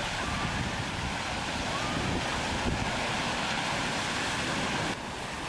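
Ocean surf washing and breaking on a beach, a steady rushing noise with wind buffeting the microphone. The sound drops abruptly near the end.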